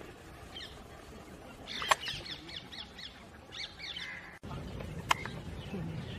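Birds chirping in two clusters of short, quick falling notes, with a sharp click about two seconds in and another about five seconds in.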